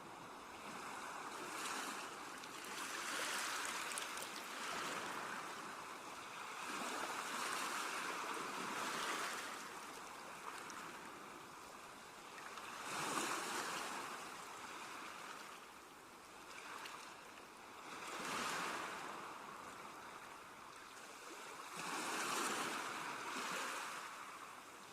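Sea waves washing onto a shore, a steady hiss of surf that swells and fades about every four to five seconds, five or six surges in all.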